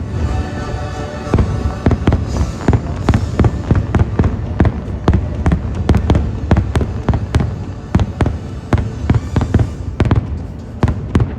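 A rapid barrage of fireworks shells bursting, several bangs a second over a low rumble, with the last held chord of the show's music dying away in the first second.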